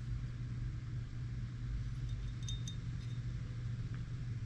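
Light clicks of small metal pistol parts (Hi-Capa trigger, sear and valve knocker) being handled and lifted out of the frame, two close together about halfway through, over a steady low hum.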